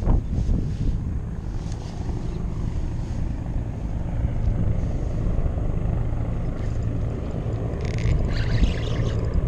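A steady low engine drone runs throughout. Near the end come a few short scrapes and knocks as a hand brushes against the camera.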